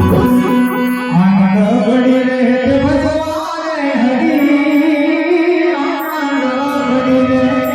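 Live Gujarati devotional bhajan singing: a singer holding long notes that glide up and down, over instrumental accompaniment with drums.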